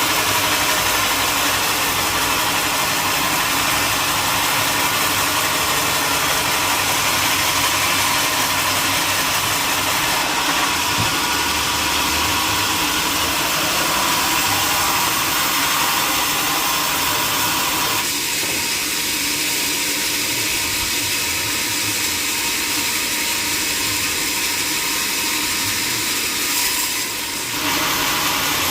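Sawmill machinery running steadily, a continuous loud mechanical noise. Its tone changes about two-thirds of the way through, and there is a brief dip in level near the end.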